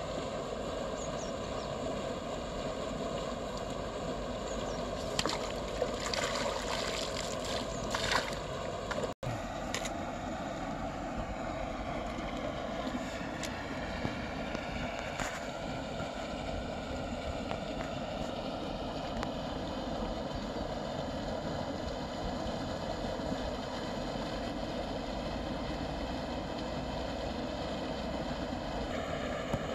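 Steady drone of a motor running at an even pitch, with a few light clicks a few seconds in.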